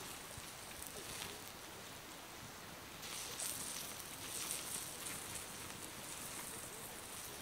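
Faint, soft rustling and pattering noise that grows a little louder about three seconds in.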